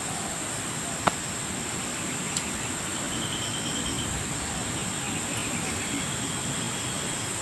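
Steady outdoor hiss with a constant high-pitched insect drone, and one sharp click about a second in.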